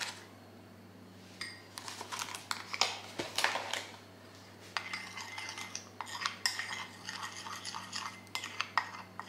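Metal teaspoon stirring cocoa powder into condensed milk in a ceramic cup: quick, irregular clinks and scrapes of the spoon against the cup, starting about a second and a half in.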